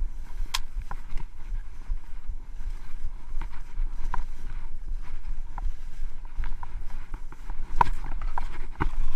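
Skis running over snow on a descent, heard through a body-worn action camera, with a steady wind rumble on the microphone and scattered clicks and knocks that are loudest near the end.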